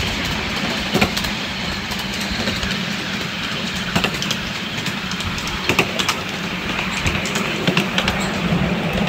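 Miniature railway train running along its track: a steady rumble of the small wheels on the rails, with scattered sharp clicks as they cross rail joints.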